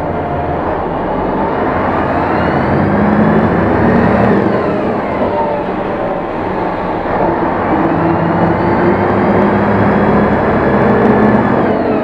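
City bus engine and transmission heard from inside the bus as it pulls away: a whine that rises in pitch as the bus speeds up, drops sharply at a gear change about four seconds in, then climbs again and drops at the next gear change near the end.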